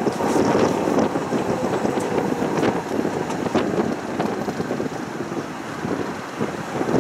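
Tram running along its track, heard from on board, with wind buffeting the microphone. It eases off a little about four seconds in, with a few faint clicks.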